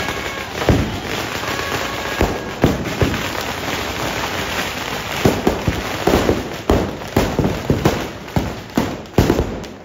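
Firecrackers packed into a burning Ravana effigy going off: a continuous crackle broken by sharp bangs, which come thick and fast from about halfway through.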